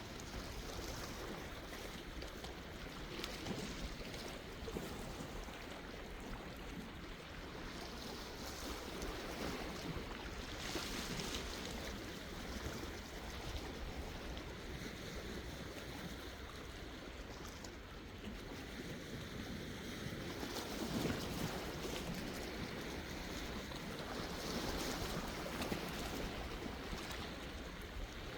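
Sea waves washing in: a steady wash of water that swells gently now and then.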